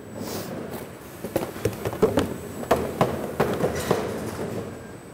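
Packing-line machinery running with a steady rumble. Between about one and four seconds in comes a run of irregular knocks and clacks.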